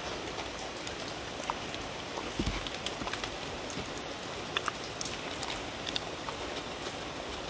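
Dogs eating from a wooden bowl, with scattered small clicks and smacks of licking and chewing over a steady hiss.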